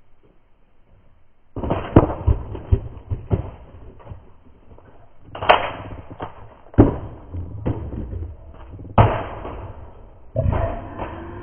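A laptop being smashed: after a quieter first second and a half, a run of heavy cracking impacts as its plastic case is jumped on and struck, the loudest about two, seven and nine seconds in. The sound is slowed down and dull, as in slow-motion footage.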